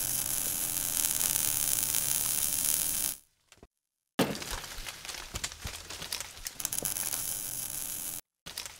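Sound effects for an animated logo sting: a dense crackling hiss that stops abruptly about three seconds in, then after a second's gap resumes with scattered cracks and clicks, cutting off shortly before the end.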